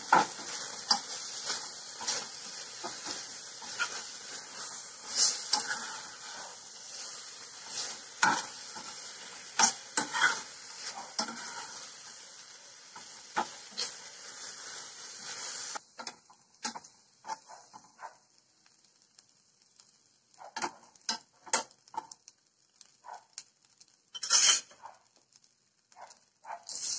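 Spinach leaves sizzling in a hot pan of leftover sauce, with frequent clicks of utensils against the pan. The sizzle cuts off suddenly about two-thirds of the way through, leaving scattered clinks and knocks of utensils and dishes.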